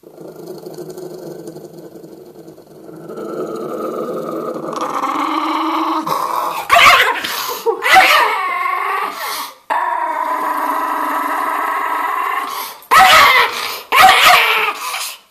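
Old schnauzer growling in warning at being touched. The growl builds after a few seconds and breaks into two loud barks a little before the middle and two more near the end, with growling running between them.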